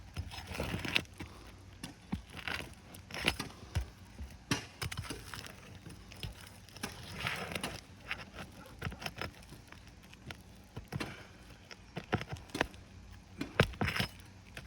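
Roofing nails being pried out of asphalt shingles with a metal tool: irregular clinks, knocks and scrapes, with longer scraping strokes about a second in and about seven seconds in.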